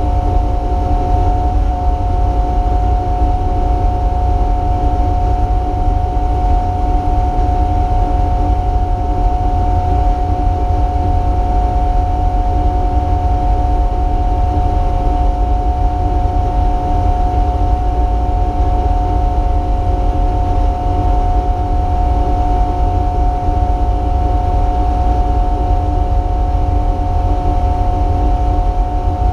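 Race car cabin noise: a constant, loud drone with a heavy low rumble, its pitch holding steady throughout with no revving or gear changes.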